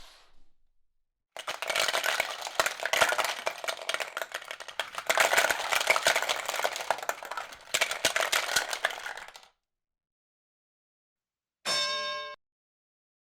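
Rapid, irregular clattering and clinking of many small hard objects for about eight seconds. About two seconds later comes a short chime.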